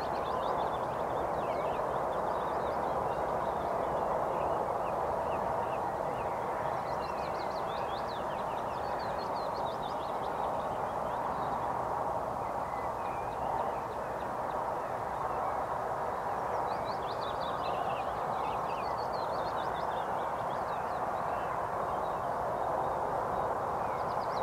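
Small songbirds chirping in scattered bursts of short, high calls over a steady background hiss.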